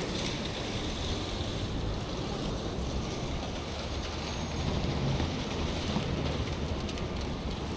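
Steady city street ambience: a continuous rush of traffic with wind, some of it buffeting the microphone.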